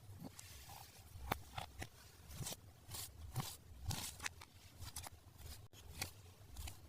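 Toy packaging being handled and opened: scattered soft clicks, taps and brief crinkles.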